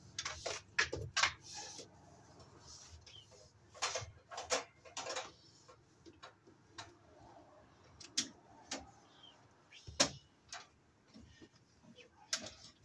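Yellow 12/2 plastic-sheathed cable being pulled and fed into a metal breaker panel: irregular clicks, taps and rustling scrapes as the cable slides and knocks against the box, with one sharp tap about ten seconds in.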